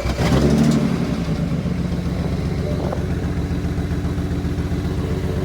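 BMW 335i's turbocharged straight-six fires up with a brief flare in revs, then settles into a steady idle. The owners blame its hot no-start on worn spark plugs.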